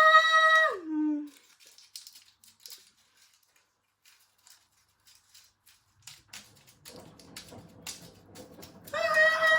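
A hot-wired washing machine runs in a destruction test, giving a loud, steady high-pitched whine. About a second in, the whine drops sharply in pitch and stops. After a stretch of scattered clicks and a low rumble that builds up, the same whine cuts back in near the end.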